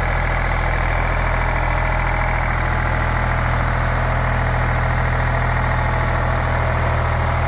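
Eicher three-cylinder air-cooled diesel engine running a three-phase generator set at a steady speed, with a constant low hum.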